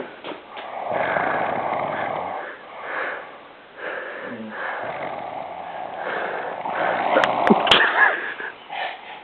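A sleeping person snoring: long, rasping breaths, several in a row, with a few sharp clicks about seven seconds in.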